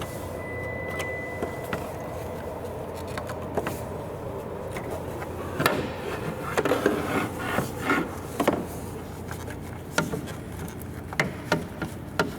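Scattered clicks and knocks of plastic parts being handled: the bulb socket and the turn signal and marker light assembly. A steady low hum runs underneath.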